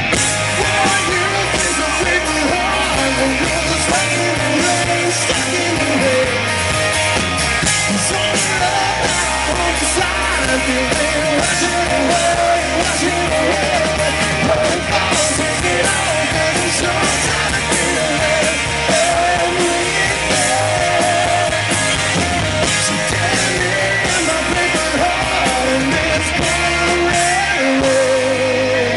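Live rock band playing a song: electric guitar and drum kit, with a male lead vocal singing over them.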